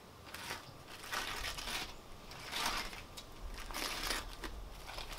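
Aluminium foil crinkling in several bursts as it is peeled open by hand.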